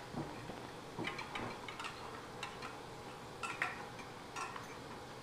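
Two dogs licking and chewing doggy ice cream from stainless steel bowls: soft wet licking with irregular clicks and clinks against the metal bowls.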